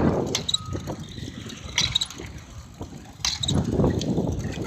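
Bicycle rattling and clicking as it is ridden over rough dirt, with louder bumpy stretches at the start and again near the end.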